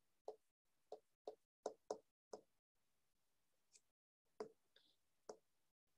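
Faint, light taps of a stylus on a touchscreen while handwriting. About eight short knocks come at an uneven pace, six close together, then a pause of about two seconds, then two more.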